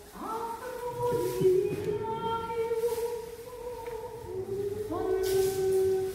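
Unaccompanied voices singing long held notes, several overlapping, each swooping up into its pitch before holding steady, with a short hiss near the end.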